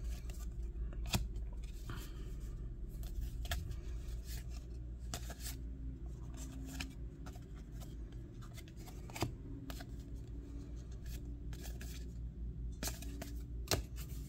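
Glossy trading cards being flipped through by hand, one card at a time sliding off the stack with small clicks and scrapes at an irregular pace.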